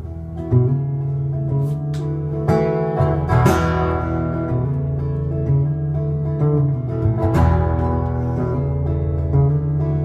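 Acoustic guitar strummed in a steady rhythm, its chords ringing out.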